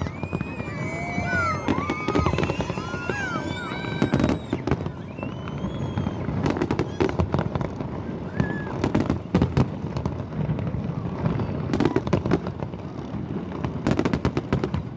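New Year fireworks display: a steady run of bangs and crackling pops throughout, with rising and falling whistles over the first few seconds.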